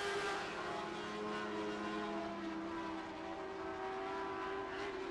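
Several Lightning Sprint race car engines running hard at a steady high pitch, their notes overlapping and shifting slightly as the cars circle the track.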